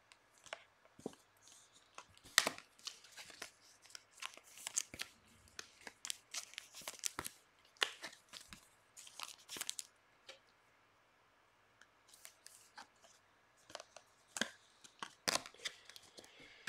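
Trading cards being flipped through by hand and handled with a clear plastic sleeve: soft, irregular rustles, flicks and clicks of card stock and plastic, with a short pause about ten seconds in.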